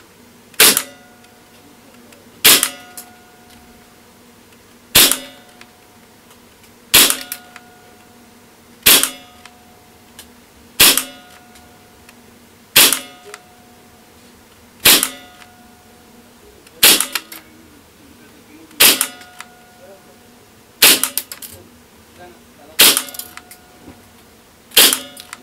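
KWA KMP9 gas blowback airsoft SMG firing single shots on green gas through a chronograph: thirteen sharp shots, about one every two seconds. This is a velocity test, with readings settling from about 357 to about 342 ft/s.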